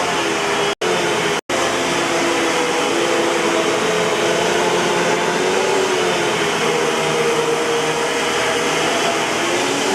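Eureka Boss 6833B canister vacuum cleaner running steadily, a rushing of air with a hum that wavers slightly in pitch. The sound cuts out for an instant twice about a second in.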